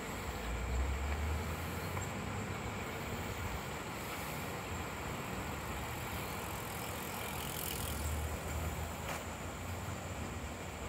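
Steady outdoor background noise, with low rumbles of wind on the microphone about a second in and again near the end.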